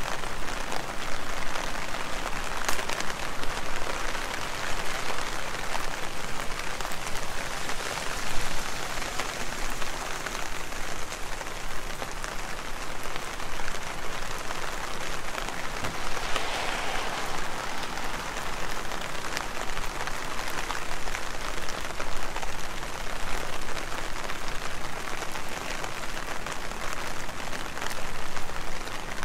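Heavy rain falling steadily: an even hiss with many small drop ticks.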